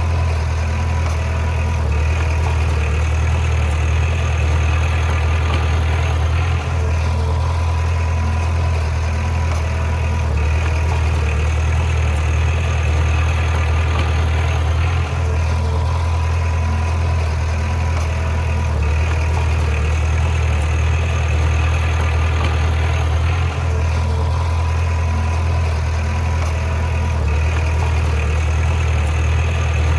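Bulldozer's diesel engine running steadily at a constant pitch, with three brief dips in level about eight seconds apart.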